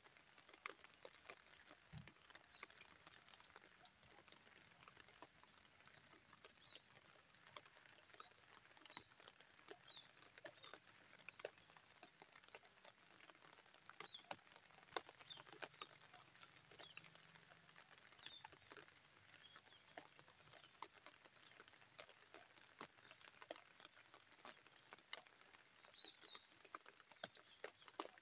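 Light rain pattering: faint, scattered drops ticking irregularly.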